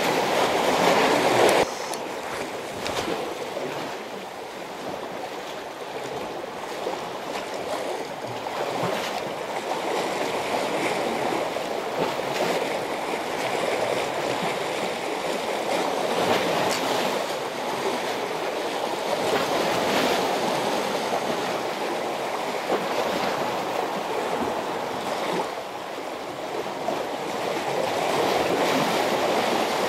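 Sea water washing against the concrete tetrapods of a harbour breakwater: a steady rushing wash that swells and eases every few seconds.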